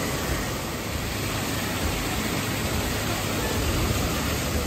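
Small waterfalls cascading over rockwork into a shallow pool: a steady rushing and splashing of water.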